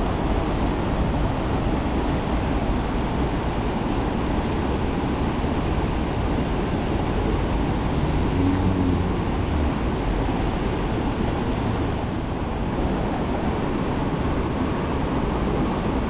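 A river swollen by a night of heavy rain, rushing hard: a steady, unbroken noise of fast-flowing water.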